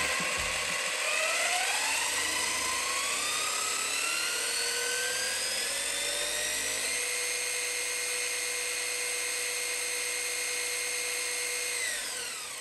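Traxxas Slash Ultimate's brushless motor and drivetrain spinning the wheels free off the ground at full throttle on a 3S battery. It makes a high whine that climbs in pitch for about seven seconds, holds steady, then winds down near the end.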